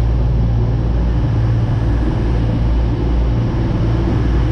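Class 222 Meridian diesel multiple unit with its underfloor diesel engines running close by: a loud, steady engine sound with a strong low hum.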